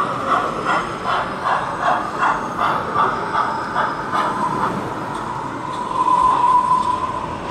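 O gauge model tank locomotive running slowly along the layout: a steady whine with an even beat of nearly three pulses a second, which fades out about halfway through. The whine then steadies and swells briefly about six seconds in.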